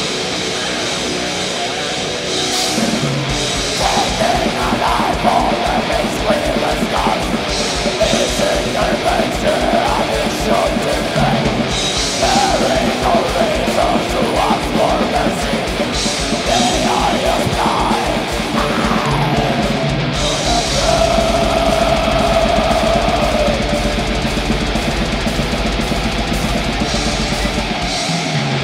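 A death-metal band playing live: heavily distorted electric guitars with a bending melodic lead line over drums, with rapid double-kick drumming from a few seconds in and cymbal crashes every few seconds. About twenty seconds in, the fast kick pattern gives way to a held low chord under a sustained lead note.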